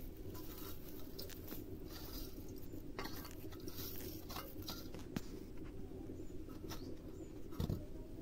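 Fresh green herbs being handled and picked over by hand: scattered faint crisp snaps and rustles over a steady low hum.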